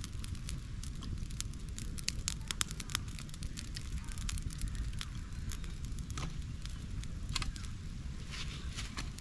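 Small wood campfire crackling, with irregular sharp pops and snaps over a steady low rumble.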